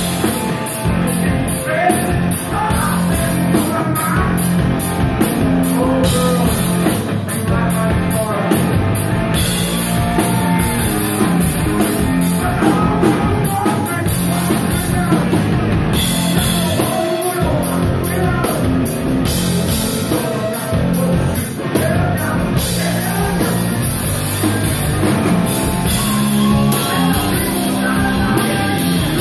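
Live rock band playing loud: electric guitar, drum kit with crashing cymbals, and a male singer over it.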